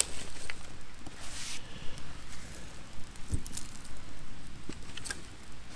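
Wood campfire crackling with sharp, irregular pops over a low hiss, and a single low thump just past halfway.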